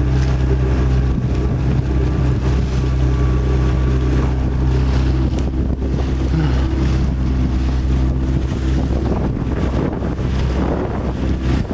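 Small fishing boat's motor running at a steady speed under way, an even low hum, with wind buffeting the microphone.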